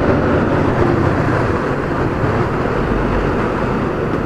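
Motorcycle running steadily at riding speed through a short road tunnel, its engine note under steady wind and road noise on the microphone.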